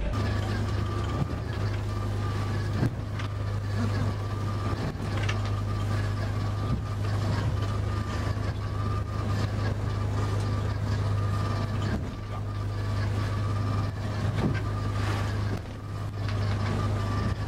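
Fishing boat's engine running under way with a steady low hum, heard from inside the wheelhouse, with sea spray and waves striking the hull and windscreen several times as the boat heads through choppy water.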